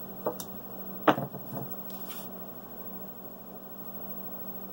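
Dice clicking a few times, the loudest about a second in, over a steady low hum.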